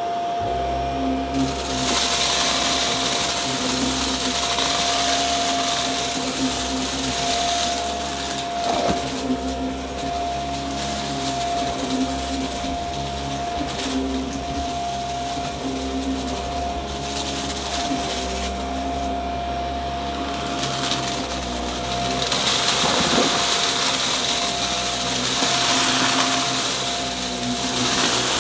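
Upright vacuum cleaner running with a steady motor whine, its brushroll crunching over debris as it sucks it up. The rush of air swells and eases as the head moves.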